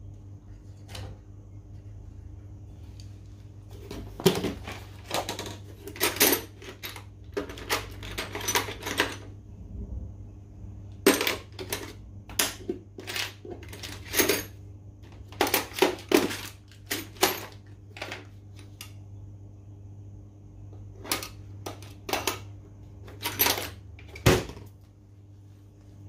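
Irregular metallic clicks and clinks of small brass fittings and a hose being handled and fitted at a refrigeration condensing unit, in clusters, over a steady low hum.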